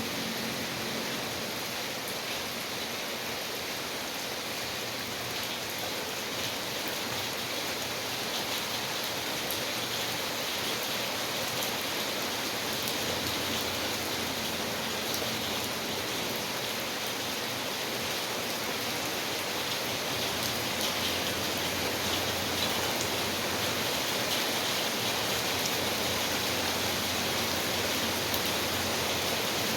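Steady rain falling, a continuous hiss with fine scattered drop patter.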